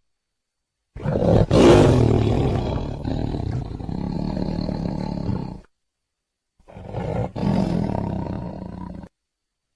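Tiger roaring twice: a long roar of about four and a half seconds, loudest near its start, then after a second's gap a shorter roar of about two and a half seconds, each cutting off abruptly.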